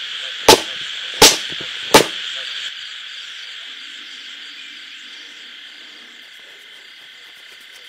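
Three sharp slaps about three-quarters of a second apart, a lump of dark clay paste being beaten on a wooden stump. Under them and running on after the beating stops, insects chirr steadily.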